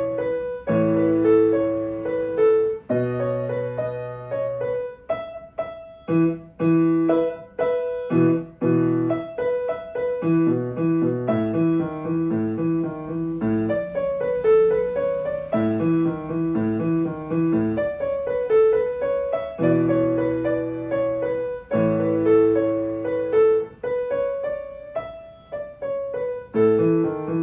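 Grand piano played solo: a melody moving over repeated held chords in the bass.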